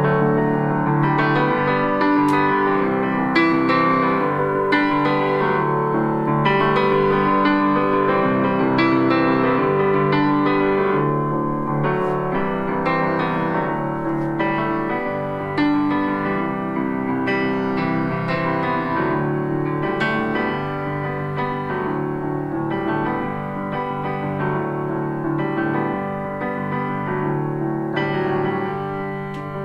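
Piano music played back through a pair of small Baltic birch plywood speakers, thin in the bass: the small enclosures give up low-end response, since they are meant to be paired with a subwoofer.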